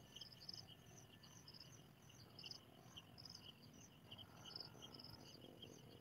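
Faint, high-pitched insect chirping: short trills repeating about twice a second, over a soft background hiss.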